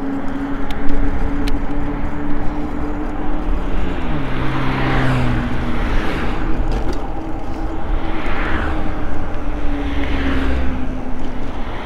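Road traffic passing close by: several cars and a van go by one after another, each a swell of tyre and engine noise that rises and fades, over a steady low rumble of wind on the microphone of a moving bike.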